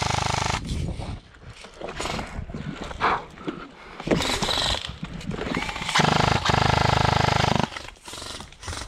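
Airsoft electric rifle firing fully automatic bursts, a fast mechanical buzz: one burst cuts off just after the start, and a longer burst of about a second and a half comes about six seconds in.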